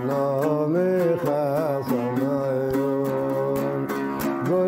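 A man singing a Hijazi dana in long, held phrases whose notes bend and waver, accompanied by a plucked oud.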